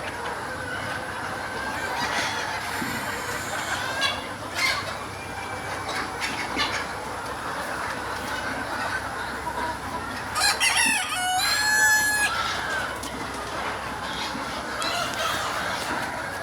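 A flock of chickens clucking steadily, with a rooster crowing once about ten seconds in.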